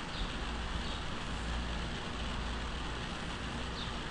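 Steady background hiss with a low hum underneath, the open microphone picking up room noise while nothing else happens.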